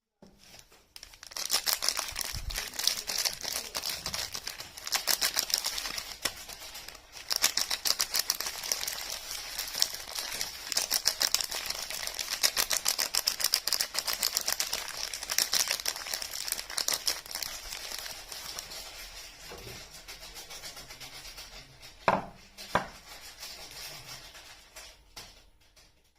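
Soap packaging being unwrapped close up: continuous crinkling and rustling of the wrapper, with two sharp snaps near the end.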